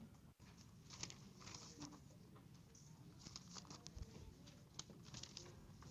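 Near silence: room tone with faint scattered clicks and rustles.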